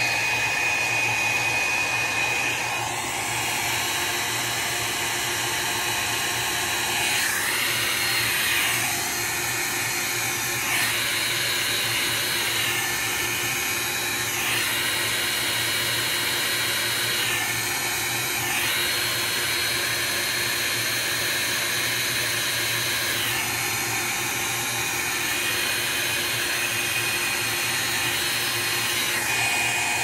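Small handheld heat gun running steadily, blowing hot air over wet alcohol ink on tiles. Its blowing sound shifts every few seconds.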